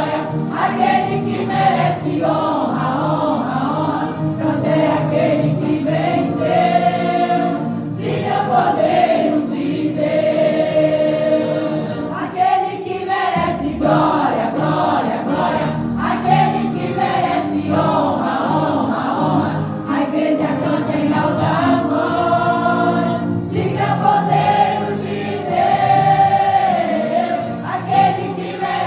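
Gospel vocal group singing a worship song, several voices together over instrumental accompaniment.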